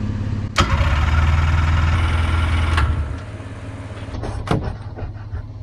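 Yamaha VMAX 600 snowmobile's two-stroke engine being turned over by its electric starter. It starts with a click about half a second in, cranks steadily for about two and a half seconds without catching, then stops, over a steady low hum.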